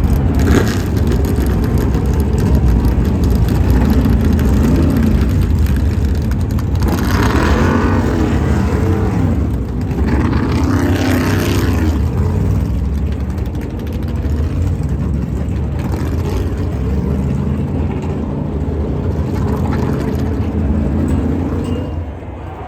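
NASCAR Cup Series stock cars' V8 engines at racing speed, packs of cars going by several times with the engine pitch rising and falling as each passes. The sound drops off just before the end.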